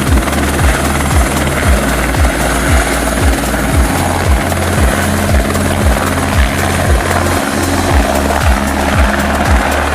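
Helicopter in flight: steady rotor and engine noise with a rhythmic thudding of the rotor blades, about three thuds a second.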